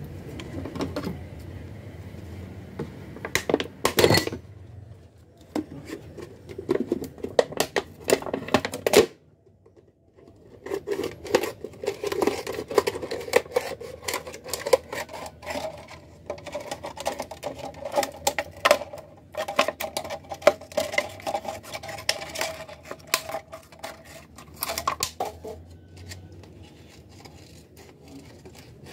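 Clear plastic PET bottle being handled, crinkling and clicking in irregular bursts, with a short pause about ten seconds in.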